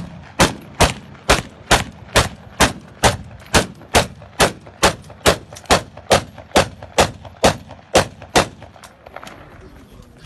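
Kalashnikov-type assault rifle (AK-47/AKM, 7.62×39 mm) firing single shots into the air in a steady string, about two shots a second, for some twenty rounds. The firing stops about nine seconds in.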